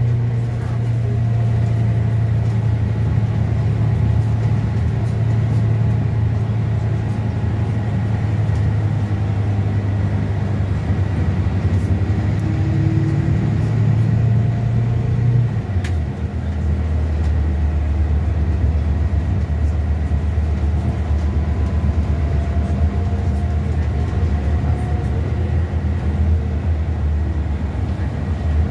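Scania K320 bus's five-cylinder diesel engine running steadily, heard inside the passenger cabin as a loud low drone. About halfway through its note drops suddenly to a lower pitch and then holds steady again.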